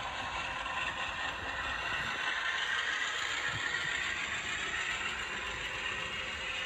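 HO-scale model freight train rolling past: a steady clatter and rattle of the articulated well cars' wheels running on the track.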